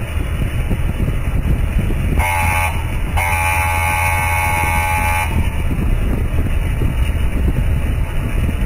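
Motorcycle riding at speed with wind on the microphone; about two seconds in, a vehicle horn sounds twice, a short toot and then a held blast of about two seconds.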